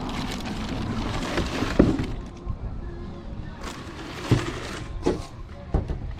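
Background music with about four separate sharp knocks spread through it; the loudest knock comes a little under two seconds in.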